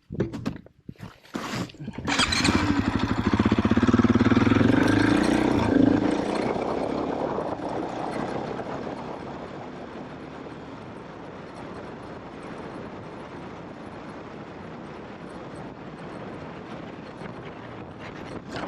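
KTM trail motorcycle engine coming in loudly about two seconds in and climbing in pitch as it accelerates. It then settles into a steadier, quieter running noise.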